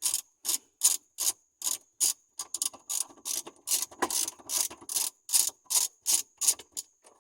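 Socket ratchet on a long extension clicking as it backs out a 12 mm bolt, a steady run of about three clicks a second.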